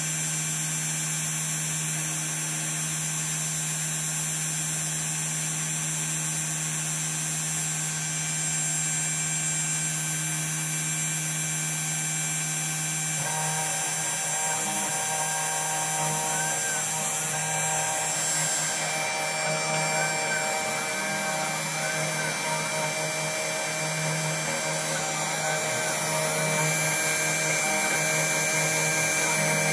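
Desktop CNC router's spindle running steadily while its bit mills traces into a copper-clad PCB blank. About halfway through, higher whining tones join in, with short rising-and-falling pitch swoops as the machine works.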